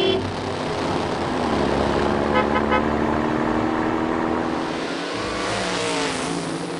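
Dubbed vehicle engine sound running steadily, with three quick horn beeps about two and a half seconds in.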